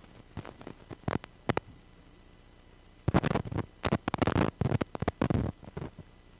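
Irregular rustling noises: a few short ones in the first second and a half, then a denser run from about three seconds in to nearly six.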